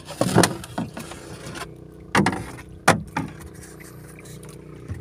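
Wooden paddle strokes on a small outrigger canoe: three sharp splashing knocks as the blade digs into the water and bumps the hull, over a steady low hum.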